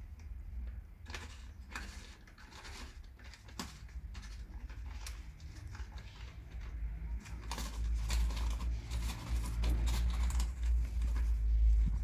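Scattered light scratching and tapping from a small tabby kitten's paws and claws as it plays on a concrete floor under a metal box, over a low rumble that grows louder about two thirds of the way in.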